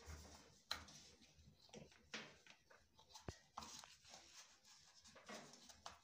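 Near silence, with a few faint clicks and rustles from an earth cable and its gland cap being handled.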